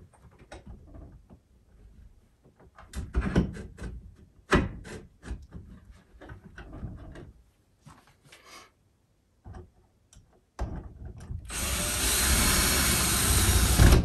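Small metal clicks and knocks as machine screws are set into a speaker's in-wall clamping bracket by hand, then, about ten seconds in, a cordless drill runs steadily, driving the screws to clamp the bracket tight against the sheetrock.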